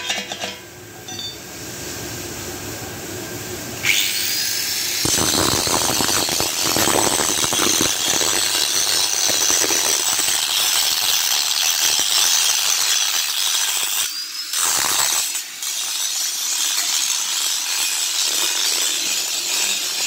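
Angle grinder spinning up about four seconds in, then grinding steel on a bracket on a truck's front axle housing, a loud steady grinding that breaks off briefly near the middle. A few metal knocks sound at the very start.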